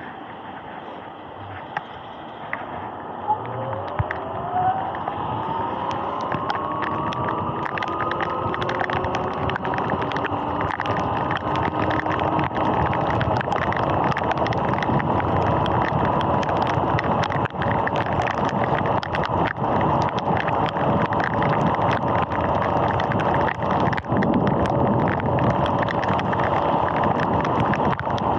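Sur-Ron X electric dirt bike pulling away: its motor and drive whine rises in pitch over a few seconds as it speeds up, then holds steady while cruising, over a loud hiss of tyres on the wet road and wind. A few sharp knocks come in the first few seconds.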